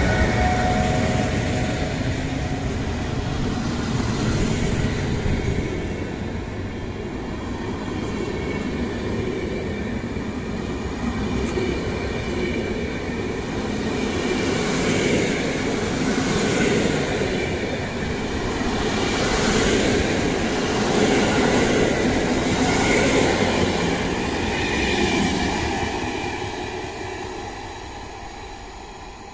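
Passenger coaches of a departing PKP Intercity train rolling past close by, the wheels rumbling and clacking over the rail joints every second or two. The sound fades away near the end as the train draws off.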